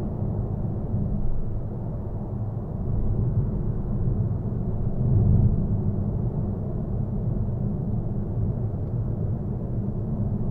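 Steady low rumble of road and engine noise heard inside the cabin of a Citroën Berlingo BlueHDi 130 diesel van cruising at motorway speed, swelling briefly about five seconds in.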